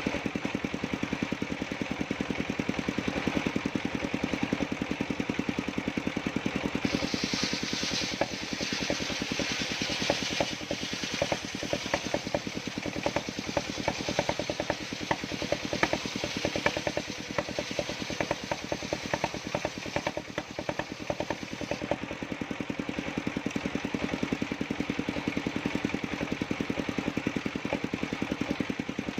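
Engine-driven circular sawmill running steadily, its engine pulsing evenly. From about seven seconds in to about twenty-two seconds in, a higher hiss with scattered ticks rides over it as the blade cuts through dry jackfruit wood, then it falls back to running free.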